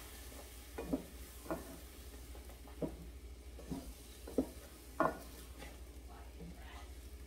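Wooden spatula stirring wet chicken curry in a stainless steel pot, with irregular soft knocks and scrapes against the pot about once a second.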